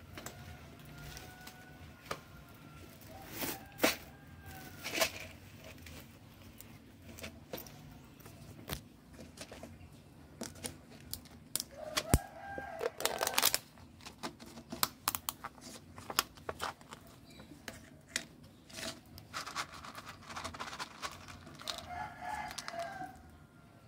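A rooster crowing several times in the distance, each crow a single drawn-out call of about a second or more. Scattered sharp clicks and taps come between the crows, more of them in the second half.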